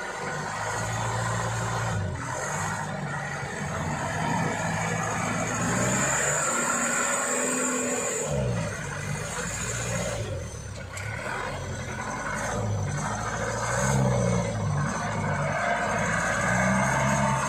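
Diesel truck engine revving up and down under heavy load as the truck crawls through deep mud, pulled forward by its winch cable.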